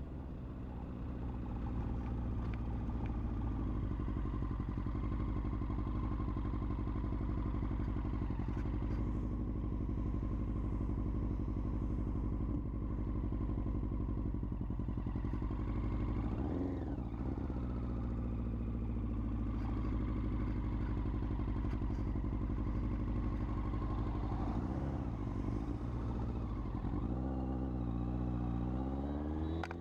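A 2001 Yamaha YZF-R1's inline-four engine, heard from a helmet-mounted camera, runs at a steady cruise. Its pitch dips and rises briefly a little past halfway, then climbs near the end as the bike accelerates.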